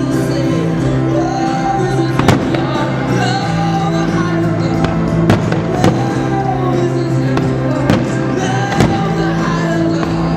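Aerial firework shells bursting with sharp bangs, a handful spaced a few seconds apart, over loud music with long held notes and a melody.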